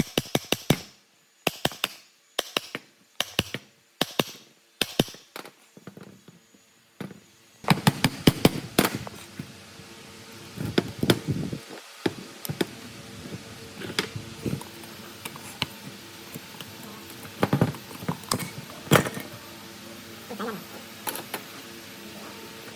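A run of sharp knocks and clicks with short gaps between them. About eight seconds in, a steady mechanical hum starts and continues, with scattered knocks over it.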